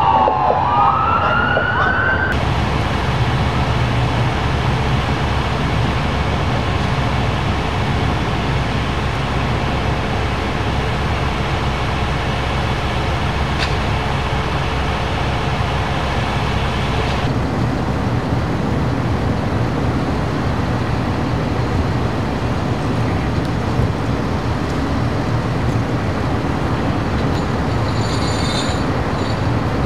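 A fire engine's siren wails briefly, falling then rising in pitch, and cuts off about two seconds in. After that comes a steady rumble of large diesel fire apparatus idling.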